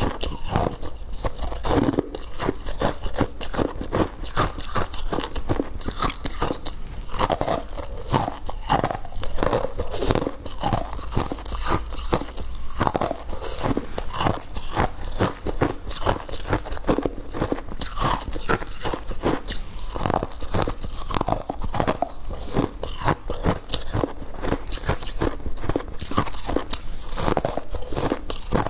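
Close-miked biting and chewing of hard ice and freezer frost: continuous crunching and crackling, several bites and chews a second.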